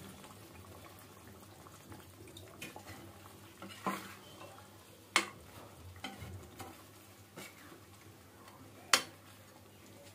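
A slotted metal ladle stirring chicken korma gravy in a metal kadhai, the gravy faintly sizzling, with a few sharp clacks of the ladle against the pan, the loudest about five and nine seconds in.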